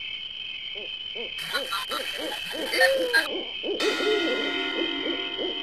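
Night ambience: crickets chirping steadily while an owl hoots over and over, a run of short rising-and-falling hoots starting about a second in. A rush of hiss joins for about two seconds in the middle.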